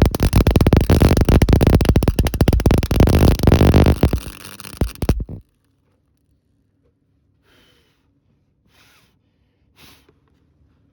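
Wire-feed welder laying a tack weld on car body sheet metal: a loud, steady crackling arc that stops suddenly about five seconds in. Three faint short hisses follow near the end.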